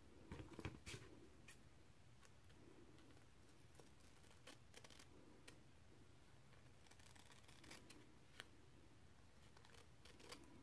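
Scissors snipping a turkey feather's vane to fletching shape: faint, scattered short cuts and clicks, busiest about half a second to a second in.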